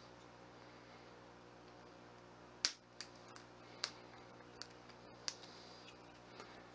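Sharp clicks and taps of small hard objects being handled: one louder click about two and a half seconds in, then five or so fainter, irregular ones over the next few seconds.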